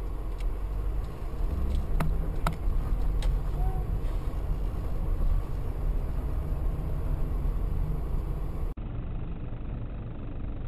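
Car driving with a steady low engine and road rumble, and a few sharp clicks in the first few seconds. Near the end an abrupt cut switches to a duller recording of similar engine noise.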